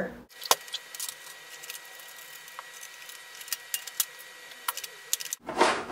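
Sparse light clicks and taps, roughly one a second, from parts being handled as a DVD drive is worked out of a desktop computer's drive bay, over a faint steady high tone.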